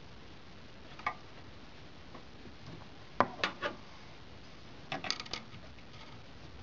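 Sharp clicks and knocks of hands working the graphics card and the PCI Express x16 slot's retention tab inside a desktop PC case: one click about a second in, three in quick succession about three seconds in, and a rapid cluster near five seconds.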